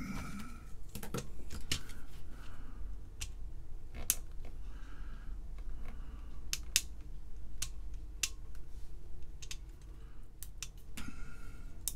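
Irregular small plastic clicks and snaps from a calculator's keyboard: keys being pressed and key switches being worked loose from the keyboard circuit board.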